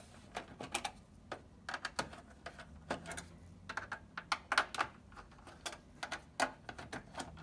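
Small Torx screws clicking and tapping against the PS4's metal shield as they are handled by hand: a run of irregular light clicks.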